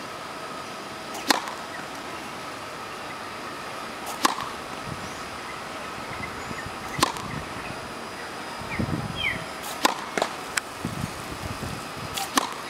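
Tennis balls struck hard by a racket on serves: about five sharp pops, roughly three seconds apart, with a few fainter knocks between them.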